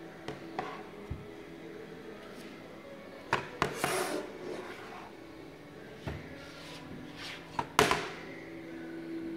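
Knocks, taps and a short rub from handling a flat printed panel on a table, with the loudest knock near the end as the panel is lifted.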